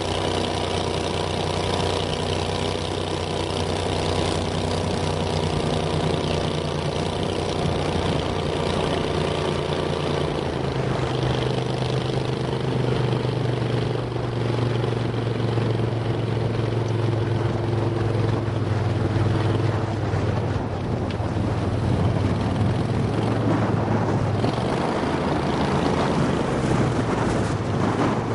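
Pro-Drive surface-drive mud motor pushing a mud boat under way, a steady engine drone. Its pitch shifts about a third of the way in, and in the last third wind and water noise rise over the engine note.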